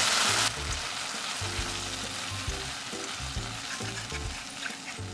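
Beaten egg sizzling in a hot frying pan over mushrooms while being stirred with chopsticks. It is loud for the first half second, then drops to a quieter, steady sizzle.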